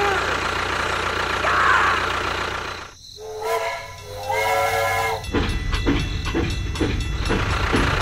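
An engine idles steadily, then stops. Two blasts of a steam train whistle follow, the second longer, and an engine sound comes back with a regular knock about three times a second.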